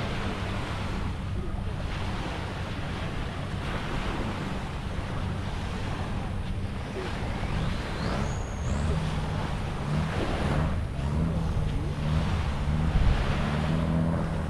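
Waves and wind on the microphone, with a boat engine running steadily that grows louder in the second half. A short rising whistle is heard about eight seconds in.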